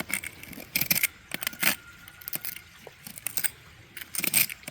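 Steel blade of a folding paint-scraper multi-tool scraping weeds out of the joint between cement block and a patio: a series of short, irregular scratching strokes.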